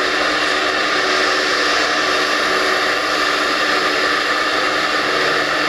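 Steady, loud whir of a stopped train's ventilation and cooling fans at the platform, a blowing noise with several fixed hum tones in it; a lower hum joins in near the end.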